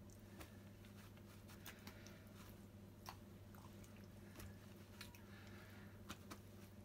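Faint paper-towel rustling and soft, wet squishy pats as raw chicken thighs are patted dry, with scattered small clicks over a steady low hum.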